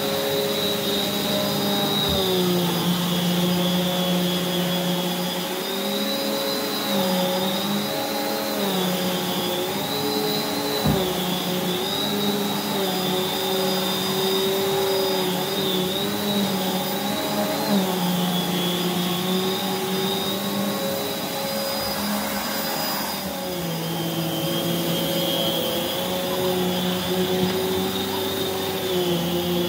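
Prolux X8 Elite backpack vacuum running steadily with its EBK360 power nozzle on carpet; the motor's whine dips and recovers in pitch again and again. A single knock comes about eleven seconds in.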